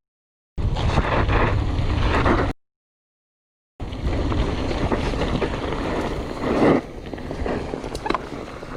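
Mountain bike descending at speed: wind buffeting the camera microphone over the rumble and rattle of tyres and bike on rough ground, with a few sharper knocks. The sound cuts out completely twice, briefly at the start and for about a second between two and four seconds in.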